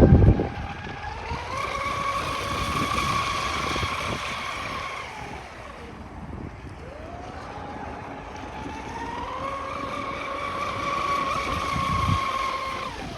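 Traxxas M41 RC boat's brushless electric motor whining at speed: the pitch climbs and holds high, sags for a couple of seconds midway as the throttle eases, then climbs and holds again before falling away near the end.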